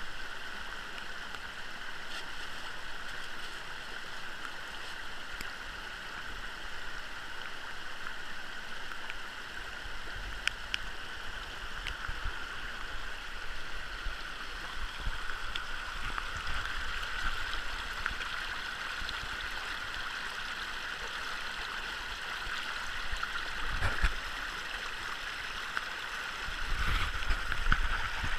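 Shallow mountain creek rushing over rocks and through a sluice box, with scattered small clicks of gravel being scooped and a few louder dull knocks near the end.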